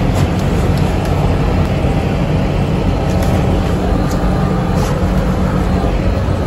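Steady, loud drone of running machinery with a low hum, unchanging throughout.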